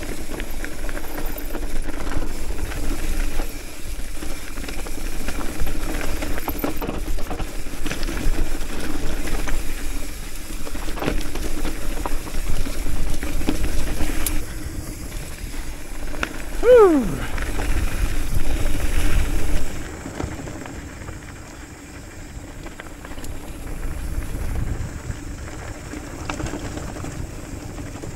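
Hardtail mountain bike rolling fast down a rocky dirt trail: tyres rumbling over gravel, with rattles and knocks from the bike and wind on the microphone. A little past halfway comes a short squeal that drops steeply in pitch. The rumble grows quieter over the last third.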